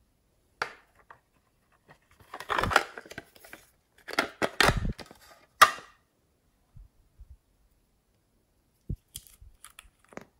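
Hands handling small glass nail polish bottles: clicks, knocks and short scraping rustles, with a sharp clack about five and a half seconds in. Near the end come faint ticking scrapes as a bottle's screw cap is twisted off.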